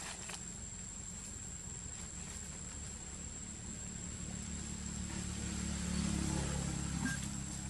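Low engine hum of a distant motor vehicle, swelling about five seconds in and easing off near the end, over a steady high-pitched whine.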